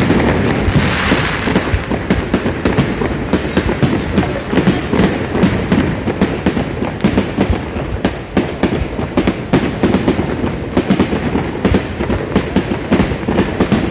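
Fireworks display: a continuous string of sharp bangs and crackles, several a second, with a hiss about a second in.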